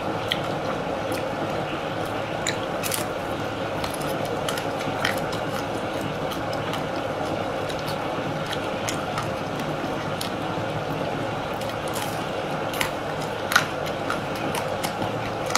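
Biting and chewing a hard-frozen chocolate-coated ice cream bar: scattered short crunches and mouth clicks, the sharpest about thirteen and a half seconds in, over steady background noise.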